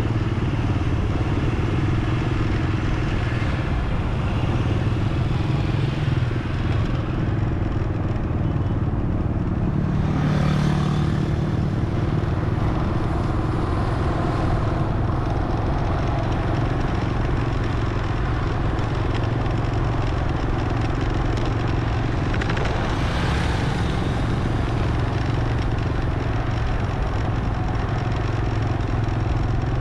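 Motor vehicle engine running steadily with road noise, swelling louder twice, about ten seconds in and again around twenty-three seconds, as other traffic passes.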